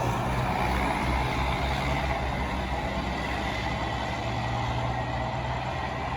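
Intercity bus's diesel engine running with a steady low hum, the sound slowly fading as it moves off.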